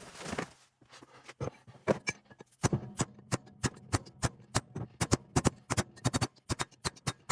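Hammer blows on metal, quick sharp taps at about four or five a second from about two and a half seconds in, driving a part out of a 231J transfer case during teardown.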